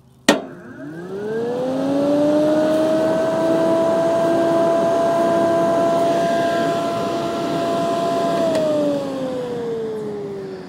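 Electric cooling fan switched on with a sharp click, whining up to speed over about two seconds and running steadily with a rush of air. About eight and a half seconds in it is switched off and winds down with a falling whine. The fan is set up for a radiator, so it is sucking air in rather than pushing it out.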